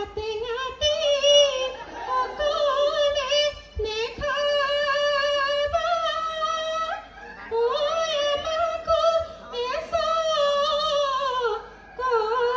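Bihu song: a high female voice sings long held, wavering notes that slide between pitches, pausing briefly for breath, with dhol drum beats faint underneath.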